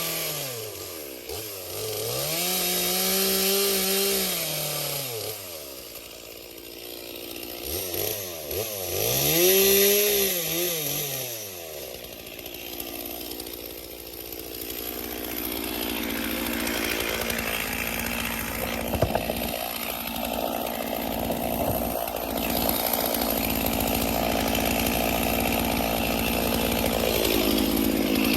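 Chainsaw revved up and back down a few times, each rev a smooth rise and fall in pitch. About twelve seconds in it settles into a steady run under load, cutting through wood.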